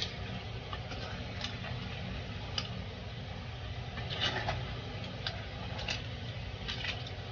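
Scattered light clicks and taps of kitchen utensils at irregular intervals over a steady low hum.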